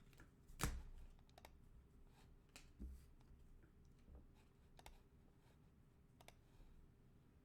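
Faint clicks and light rustles of trading cards being handled and flipped through one by one, with a louder click about a second in.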